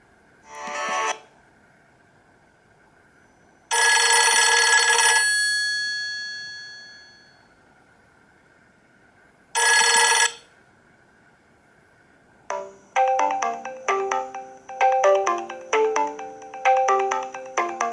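Nokia E66 factory ringtones and alert tones playing one after another. A short tone comes about half a second in, a long chime rings out and fades from about four seconds, and another short tone sounds near ten seconds. About twelve and a half seconds in, a quick melodic ringtone of many notes begins.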